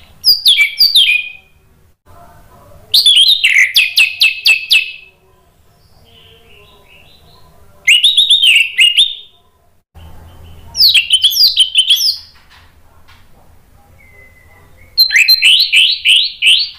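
Orange-headed thrush singing: five loud phrases of rapid, repeated chirping notes, each one to two seconds long, separated by pauses of a few seconds.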